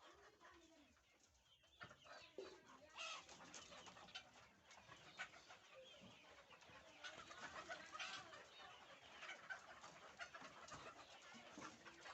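Faint clucking and short calls from a flock of three-month-old Fayoumi chickens, quiet at first and growing busier after about two seconds.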